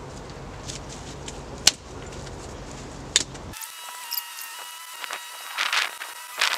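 Sticks and twigs being snapped by hand, two sharp cracks a second and a half apart, followed by brushy rustling as the broken pieces are handled.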